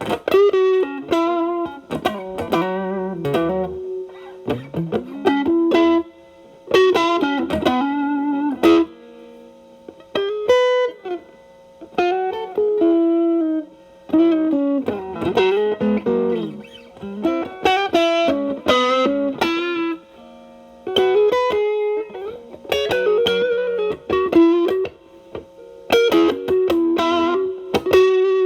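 Electric guitar, a Telecaster with single-coil alnico pickups, played in short lead phrases with string bends and vibrato, pausing briefly between phrases. It runs through an MXR Distortion+ stacked with a Boss SD-1 into a Marshall Valvestate amp's clean channel, with the guitar's volume rolled back so the drive cleans up to a light crunch.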